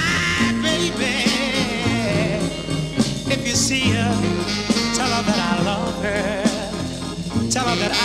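Slow oldies love song playing through a passage without sung words: a wavering melody line over a steady bass line and drums.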